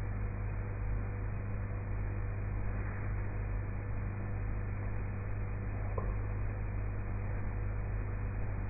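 Steady low hum with an even hiss, unchanging throughout, with one faint click about six seconds in. No snoring stands out above it.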